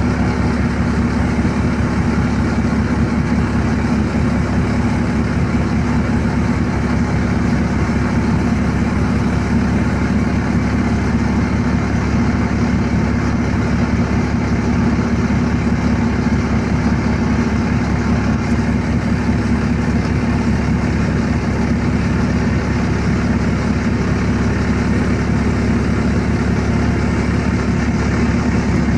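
Bus engine running steadily, heard from inside the cabin as an even low drone.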